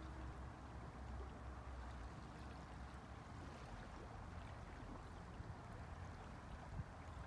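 Faint lake water lapping gently at a pebble shore, with a steady low rumble underneath.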